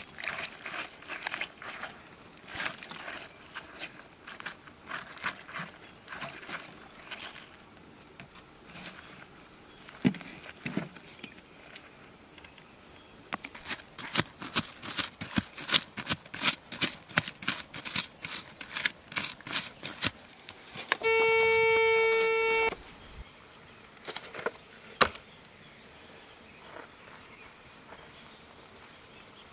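Small hand tool scraping and digging in loose soil, at first irregular, then in quick regular strokes. About three-quarters of the way through, a metal detector gives one steady electronic tone lasting under two seconds, signalling metal in the dug soil, and a single sharp click follows a little later.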